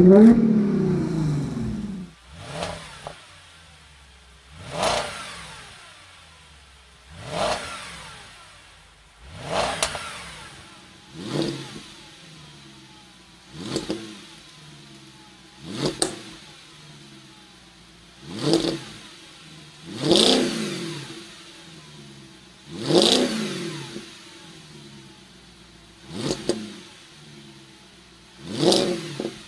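Audi B8 S5 engine and exhaust being revved in neutral: about a dozen short, sharp blips of the throttle, each rising and falling quickly back to a low idle, every two to three seconds. In the first two seconds, a rev from a 2013 S5 with an AWE full exhaust and non-resonated downpipe falls back before the cut.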